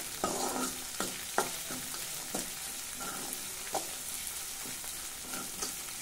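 Chopped onions, green chillies and peanuts frying in oil in an aluminium kadai with a steady sizzle, while a steel spoon stirs and scrapes the pan with irregular clinks.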